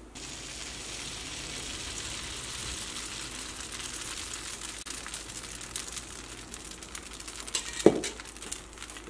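Appam rice-and-coconut batter sizzling on a hot nonstick pan, a steady crackly hiss that slowly dies down as it cooks. A short, sharp knock about eight seconds in.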